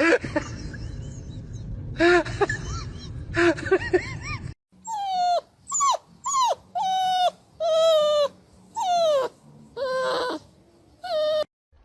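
A dog whimpering over a noisy background. Then about eight high, whining calls follow one another, each falling in pitch.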